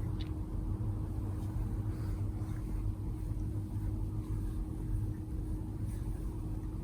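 Steady low hum with a faint constant tone running through it.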